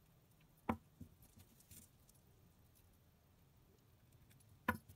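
Small fishing tackle (sinker, bead and swivel on the line) handled while a Carolina rig is tied: two sharp clicks, one under a second in and one near the end, with a few light taps between.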